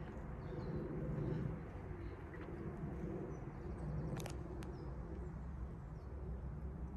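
Outdoor background with a low steady rumble and two sharp clicks about four seconds in.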